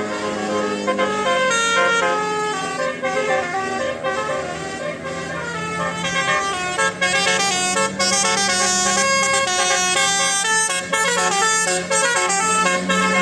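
Bus telolet horn of the Basuri type playing a quick melody of stepped notes over a steady low hum.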